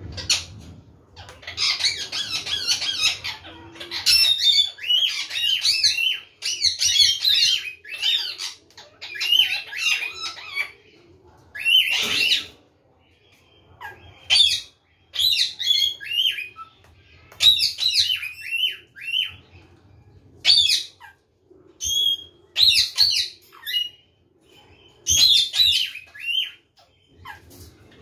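Indian ringneck parakeets chattering in rapid, high chirps and squawks that come in bursts of a few seconds with short pauses between them. There is a sharp click about twelve seconds in.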